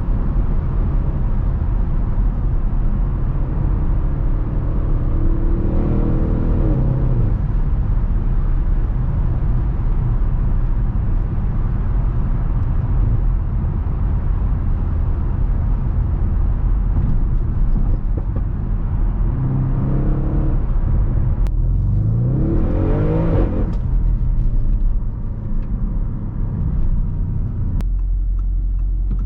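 Audi RS6 Avant's twin-turbo V8 under way, with a steady low rumble of engine and road. The revs climb quickly twice, about six seconds in and again a little past twenty seconds in, then it settles back down and is quieter near the end.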